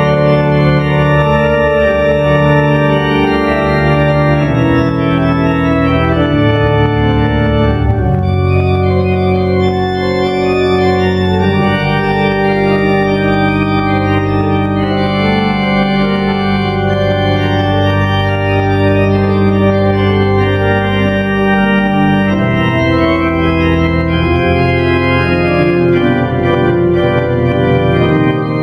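Schantz pipe organ, a three-manual, 40-rank instrument, playing loud sustained chords over a pedal bass line, the harmony shifting every second or few seconds.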